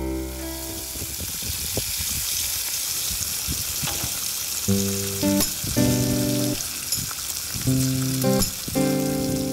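Bacon strips sizzling steadily on a hot flat-top propane griddle. Strummed guitar music comes in about halfway, in short chords.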